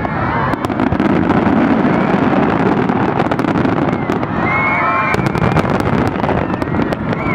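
Rapid-fire fireworks barrage, many shells launched and bursting in quick succession: a dense, continuous run of bangs and crackling.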